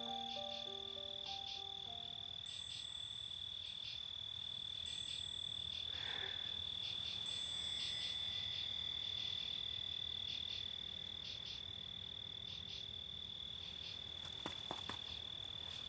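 Steady chorus of trilling crickets, a continuous high pulsing chirr. A few piano notes fade out in the first couple of seconds, and a few soft clicks come near the end.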